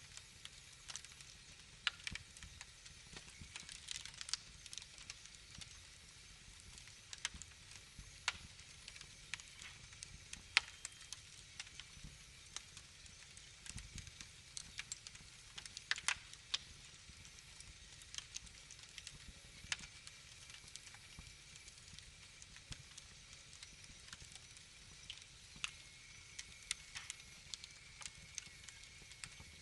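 Wood fire in a fireplace crackling: irregular sharp pops and snaps over a soft steady hiss and a low rumble.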